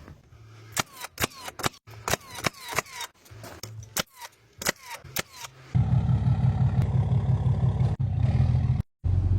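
Pneumatic finish nailer firing in quick succession, about fifteen sharp shots in five seconds, each with a short falling hiss of air. A loud, steady low motor hum then starts, the way an air compressor kicks on.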